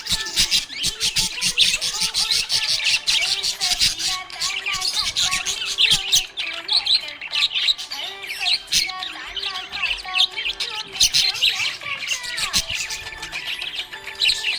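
A group of small pet parrots chirping and chattering nonstop, many rapid high chirps overlapping one another.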